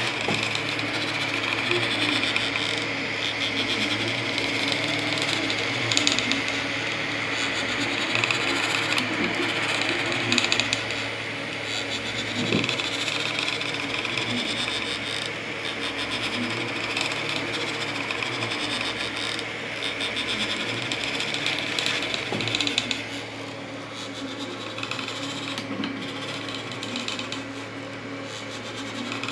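FDM 3D printer printing: its stepper motors whir and buzz in a shifting rhythm as the print head moves, over the steady hum of its cooling fans. It gets a little quieter a little past two-thirds of the way through.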